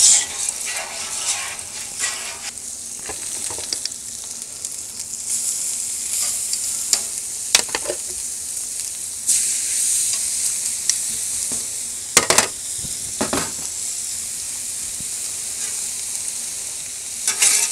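T-bone steaks sizzling on the hot steel plate of a Blackstone 36-inch propane griddle, the sizzle growing louder about nine seconds in. A few sharp scrapes and clicks of a metal spatula on the griddle surface come through it.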